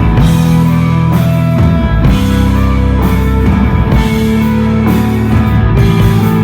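Desert rock band playing live: electric guitar, bass and drums, loud and steady, with held chords that change every second or two over washing cymbals.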